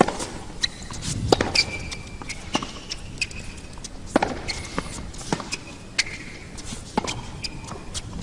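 Tennis rally: the ball popping off racket strings and bouncing on the court, a sharp knock every second or so, with short high squeaks in between.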